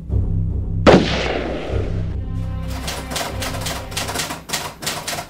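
Dramatic film soundtrack with a low droning tone, cut by one loud bang about a second in that rings away. From about halfway comes a run of rapid, uneven clicks.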